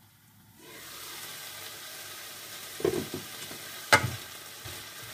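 Sliced chicken breast sizzling in a frying pan; the sizzle comes up about half a second in, as the glass lid is lifted off. A wooden spatula stirs the pieces, knocking against the pan a few times, loudest near four seconds in.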